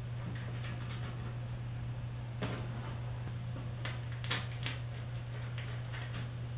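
Stainless-steel bolts and nuts being fitted by hand through an acrylic panel into a metal frame: scattered light clicks and scrapes, the sharpest about two and a half and four seconds in, over a steady low hum.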